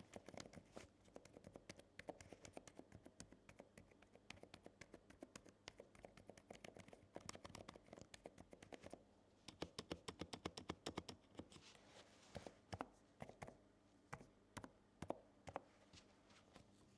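Typing on a NuPhy Halo96 V2 mechanical keyboard: soft, muted keystrokes in quick runs, with a short pause about nine seconds in, then sparser, slower presses toward the end.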